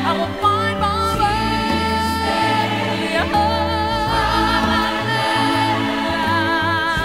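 Background music: a song with held, wavering sung notes and choir over a steady bass line.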